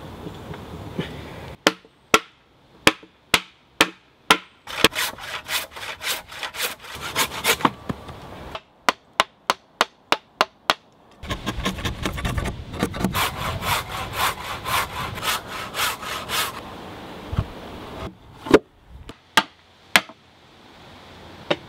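Hand tools working green oak: runs of sharp mallet blows on a chisel, about two a second, alternating with runs of quick back-and-forth cutting strokes in the wood.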